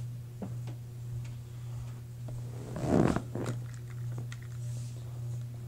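Handling noises: scattered light clicks and a brief crackling rustle about three seconds in, over a steady low electrical hum.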